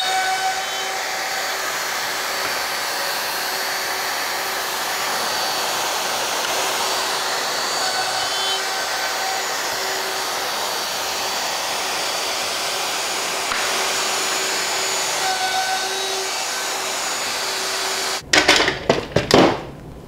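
Festool plunge router with its dust extraction running steadily while drilling a row of 5 mm holes through an LR32 guide rail. It stops near the end, and a quick series of loud knocks and clatter follows.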